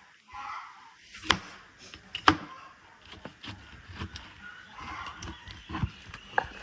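A series of irregular sharp knocks and clacks, the two loudest about one and two seconds in, with smaller ones between.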